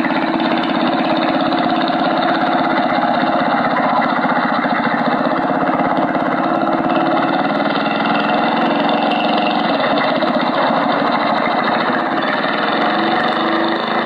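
Small Briggs & Stratton engine on a homemade remote-control car running steadily as the car drives, a continuous rapid-firing drone.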